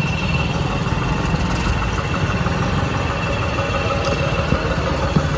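Diesel tractor engine running steadily at idle, low and pulsing, with a thin steady high-pitched whine above it.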